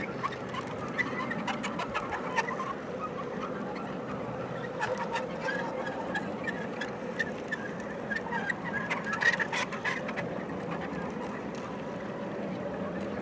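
G scale model hopper cars rolling along the track, wheels clicking over the rails, with faint, intermittent high-pitched squealing from the wheels.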